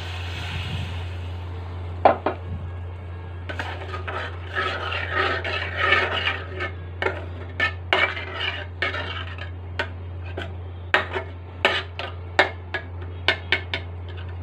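Steel ladle stirring and scraping in a metal cooking pan of watery masala, with many short clinks and scrapes against the pan. At the start, a fading hiss as freshly poured water sizzles in the hot pan; a steady low hum underneath.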